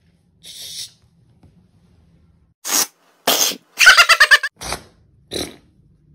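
A man screaming loudly in a shrill cry lasting about a second, among a few short noisy bursts.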